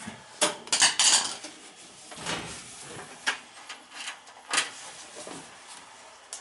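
Irregular metallic clanks, knocks and scrapes of hand tools working on a belt-driven gas furnace's blower and its broken pulley, with a quick cluster of loud clanks in the first second and single knocks after.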